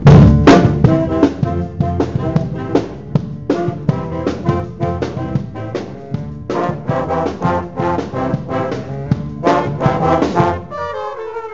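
A concert band plays brass chords with sharp, punchy accents over a drum kit, heard close from a camera mounted on a trombone. The trombone is prominent. The loudest hit comes right at the start, and the playing thins to a softer passage near the end.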